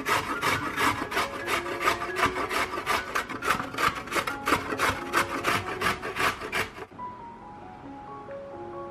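Carrot being grated on a stainless steel box grater over a wooden board: quick, rhythmic rasping strokes that stop about seven seconds in.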